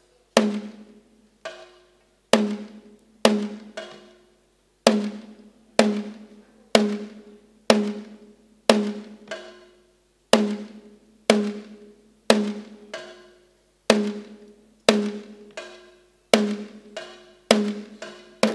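Kerala chenda drums struck in slow, single strokes about once a second, now and then a quick double stroke. Each stroke rings out with a low pitch and fades before the next, the slow opening pace of a thayambaka.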